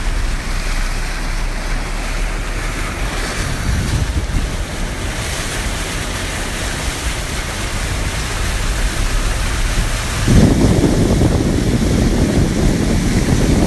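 Storm wind rushing and buffeting the microphone in a severe thunderstorm. About ten seconds in it turns louder and deeper.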